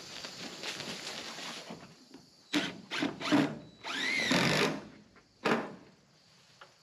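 Cordless drill driving screws through a steeple's wooden base into a metal roof, in several short bursts starting about two and a half seconds in. The longest burst, about four seconds in, has the motor pitch rising and then falling.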